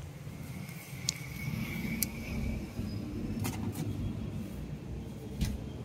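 Road traffic rumbling steadily, with a few sharp clicks and knocks close by.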